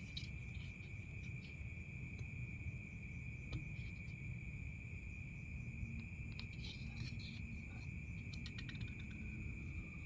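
Steady high-pitched insect chorus, like crickets, over a low rumble, with a few faint clicks.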